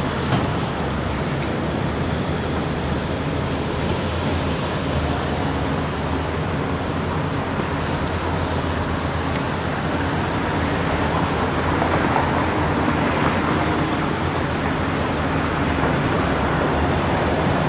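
Steady city traffic noise: an even, continuous hiss of passing vehicles, a little louder in the second half.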